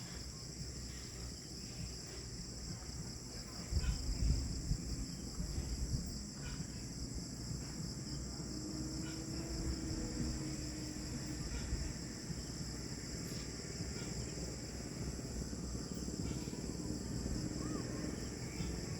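A steady evening chorus of insects, a continuous high-pitched trill that does not let up, over a low rumble that swells briefly about four seconds in.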